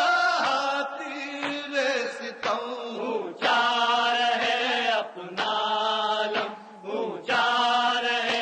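Male voice chanting an Urdu noha, a Shia lamentation, in long held phrases with short breaks between them.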